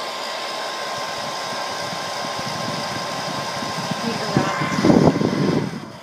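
Hand-held hair dryer running with a steady rush of air and a constant whine, pretty loud, switching off near the end.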